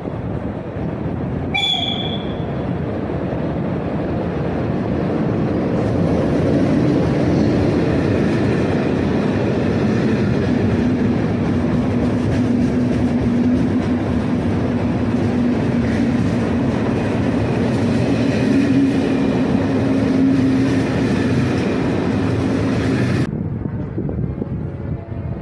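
An electric-hauled passenger train with an 'Eso' locomotive drawing in past the platform. There is a brief horn note about two seconds in, then the steady rumble of the coaches' wheels rolling by with a low hum over it. Near the end the sound cuts abruptly to quieter station noise.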